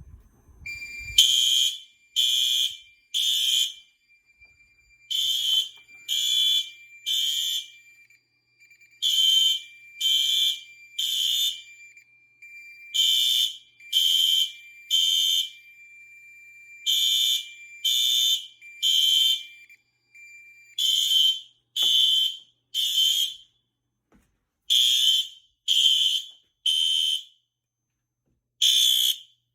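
Fire alarm horn, the System Sensor P2W horn strobe, sounding the temporal-3 evacuation code: three short blasts, a pause, then again, after a manual pull station is pulled. Under the first two-thirds a steady high beep sounds and then stops.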